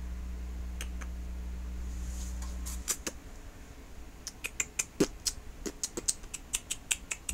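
A cat pushing into a bag, making a run of short, sharp, irregular crinkles and clicks that start about three seconds in. A steady low hum cuts off just before they begin.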